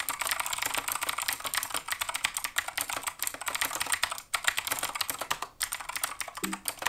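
Fast typing on a Keychron K2 mechanical keyboard in its aluminum case: a dense, continuous run of key clicks and clacks, with a short break about four seconds in.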